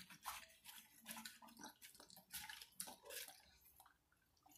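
German Shepherd eating chunks of wet dog food from a hand-held paper tray: faint, irregular wet chewing clicks that stop near the end.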